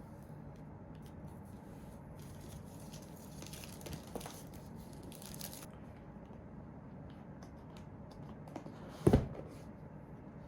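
Soft rustling and crinkling of packaging being handled, with a few small ticks, then a single loud knock about nine seconds in as something is set down.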